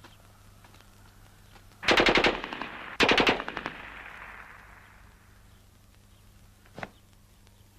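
Submachine gun firing two short bursts of rapid shots about a second apart, the second trailing off in a long echo. A single sharp report comes near the end.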